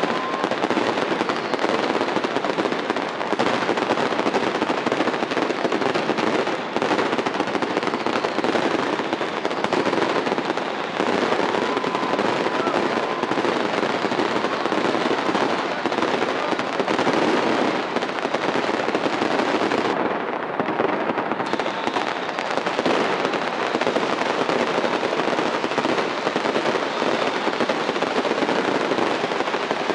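Dense barrage of fireworks going off without pause: rapid crackling and banging, too many reports to count. A faint whistle is heard briefly about eleven seconds in.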